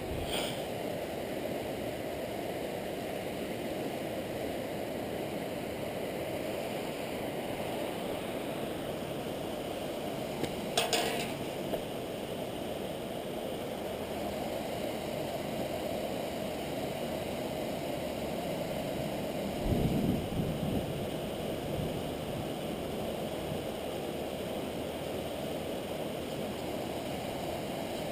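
Steady rush of river water flowing over rocks. A sharp click about a third of the way through and a dull bump about two-thirds through.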